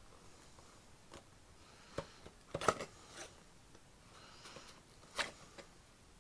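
Handling of a cardboard lure box: a scattering of faint clicks and taps as it is turned over in the hands, the loudest cluster a little under three seconds in and another sharp tap about five seconds in.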